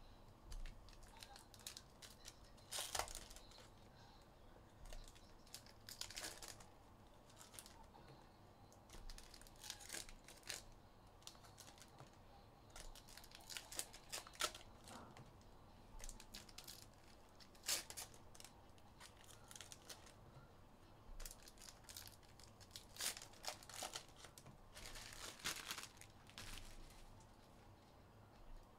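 Plastic wrapping on trading card packs being torn open and crinkled by hand. The sound comes in irregular short bursts of quiet rustling throughout.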